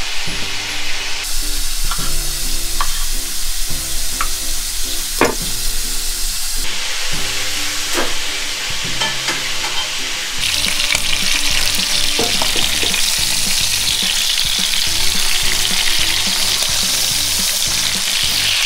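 A few sharp knife taps on a cutting board. About ten seconds in, beef chuck roasts start sizzling loudly as they brown in a large pot and are stirred.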